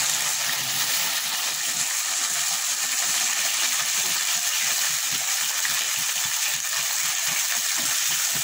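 Whole small brinjals frying in hot oil in a metal pan: a steady sizzle with fine crackling.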